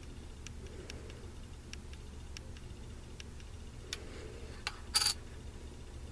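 Scattered faint clicks and light taps from handling the contents of a card blister pack on a table, with a sharper double click about five seconds in, over a steady low room hum.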